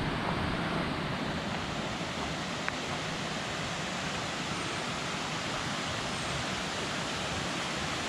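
Steady rushing of water falling down a cascade on a mountain stream.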